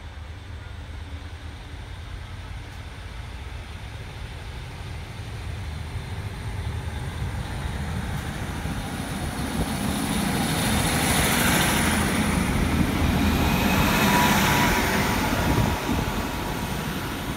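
Class 150 Sprinter diesel multiple unit drawing into the platform and passing close by. The rumble of its underfloor diesel engines and wheels on the rails grows louder as it nears, peaks as it passes, then eases, with a thin high-pitched squeal over it.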